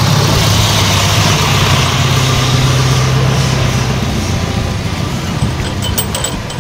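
A motor vehicle engine running steadily with a low hum, fading after about four seconds. A few light metallic clinks of tools come near the end.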